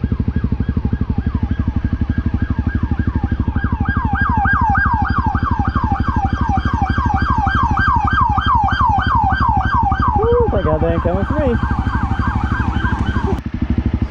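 Emergency vehicle siren in a fast yelp, its pitch sweeping up and down several times a second, over the steady pulse of a Honda CRF250L's single-cylinder engine. The siren cuts off suddenly near the end.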